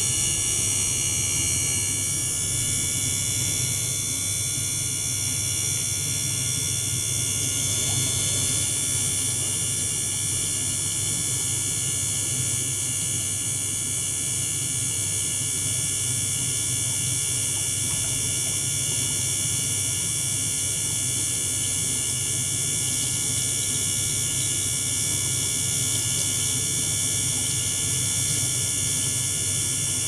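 Small electric liquid-circulation pump running steadily, a hum and buzz with several steady high whining tones above it, while it pushes water and air through a hose into the tank. The high tones shift slightly about two seconds in.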